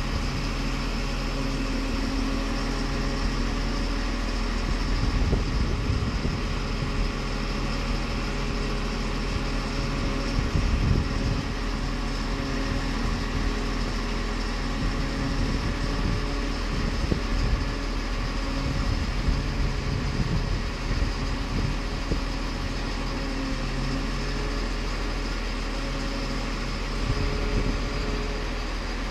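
Truck crane's diesel engine running steadily at a low, even speed while it holds and lowers a steel silo section, with a few brief louder rumbles along the way.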